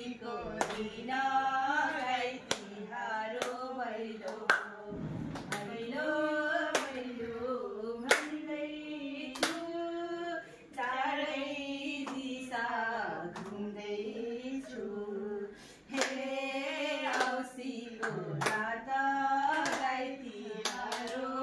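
Women singing a Nepali Bhailini folk song for Tihar, with hand claps keeping time through the song.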